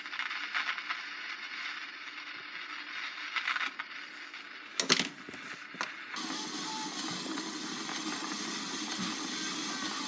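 Crackle and hiss from the speaker of a 1946 Electrohome radio-phonograph, with a sharp loud click about five seconds in, after which a steady hiss takes over with only faint traces of sound through it. The phonograph's cartridge is not reproducing properly.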